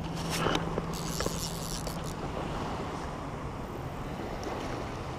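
Small boat sitting on open water: wind on the microphone and water washing at the hull, under a steady low hum that drops a little in pitch about three seconds in. A short hiss about a second in and a few faint light ticks.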